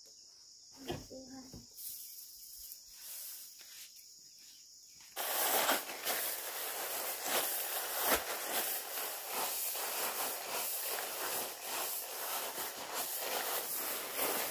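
Bare feet treading and rubbing dry rice panicles on a plastic tarp to thresh the grain: a dense, crackling rustle of straw and falling grains that starts abruptly about five seconds in. Before it, a steady high insect drone and a brief short vocal sound.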